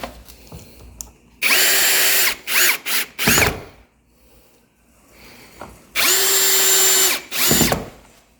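Power drill driving small screws through a metal door strike plate into the jamb. It runs in two long runs about four seconds apart, each followed by short bursts, and the whine drops in pitch as the motor stops.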